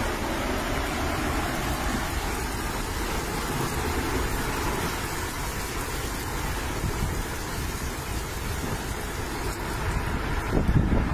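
Wind and rain from a nearby tornado, a steady rushing noise with no let-up, swelling in a stronger gust near the end.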